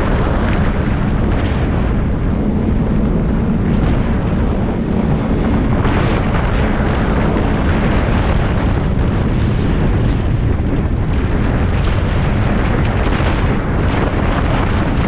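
Snowmobile running steadily along a trail, its engine and track noise mixed with wind buffeting on the camera microphone, loud throughout.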